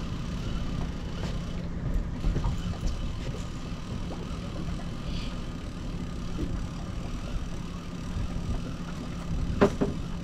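Boat motor running steadily at trolling speed, a constant low hum. A short, louder sound with a bending pitch breaks in near the end.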